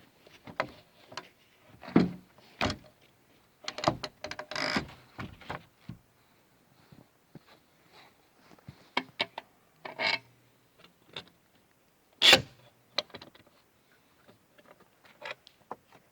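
Irregular knocks, clunks and scraping sounds with gaps between them; the sharpest, loudest knock comes about twelve seconds in.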